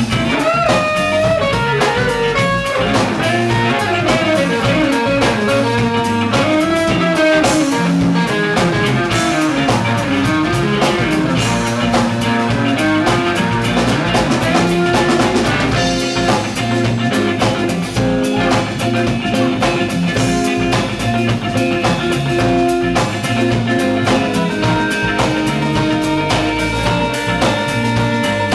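Live electric blues band playing: a V-shaped electric guitar bending notes over drum kit and bass guitar, with a second electric guitar.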